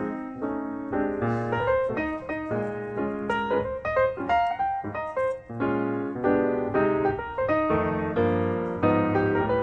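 Background piano music, a quick busy melody over chords.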